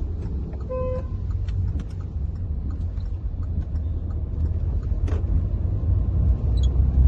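Hyundai Verna's 1.6 CRDi four-cylinder diesel car driving: a steady low engine-and-road rumble that grows a little louder toward the end, with a short beep about a second in.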